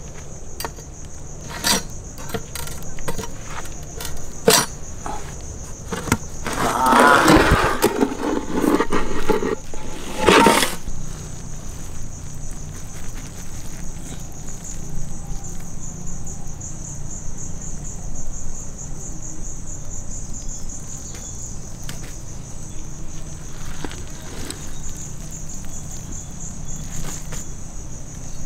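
Insects chirring steadily at a high pitch, with metal knocks, a loud clattering rush and scraping as the dum lid comes off a large pot of biryani and a ladle turns the rice.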